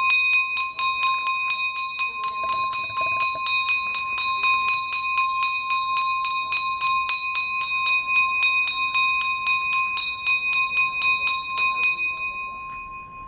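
Small brass bell on the back of a garbage collection truck, rung rapidly by hand at about five strikes a second with a clear steady ring. The strikes stop about a second before the end and the bell rings on, fading. It is the call for residents to bring out their household waste.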